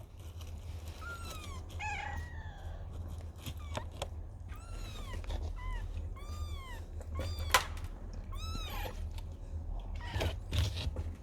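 A cat meowing repeatedly in short, high calls that rise and fall, about eight of them, with small clicks and one sharp click about seven and a half seconds in. A steady low hum runs underneath.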